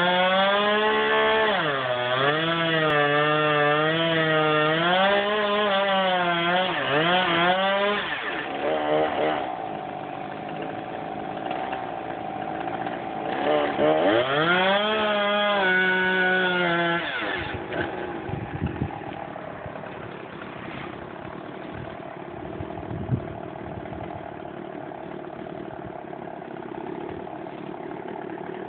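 Two-stroke chainsaw revving up and down at high speed while cutting a tree, its pitch swinging with the throttle and load. After about seventeen seconds it drops back to a lower, quieter idle.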